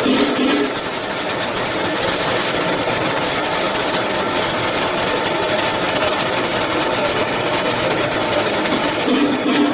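Metal grinding machine running, its wheel grinding a metal measuring mandrel: a loud, steady grinding hiss with a faint steady whine underneath.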